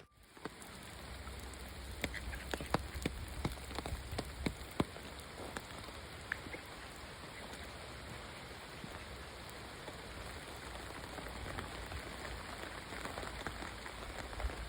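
Steady rain falling, with individual drops ticking sharply close by, most often in the first few seconds.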